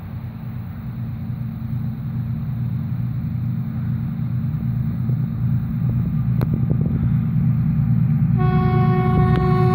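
2TE10U diesel locomotive approaching, its engine rumble growing steadily louder, then about eight and a half seconds in its horn sounds one long steady note that carries on past the end.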